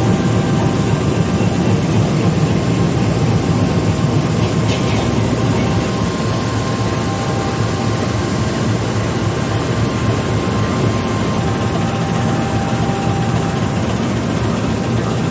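Diesel-electric locomotive (PNR DEL 921) idling: a steady, low diesel rumble with a faint steady whine above it.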